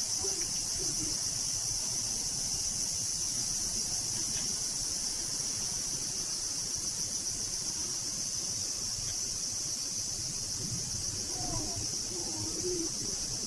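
A steady, high-pitched insect chorus from the surrounding woods, shrilling without a break.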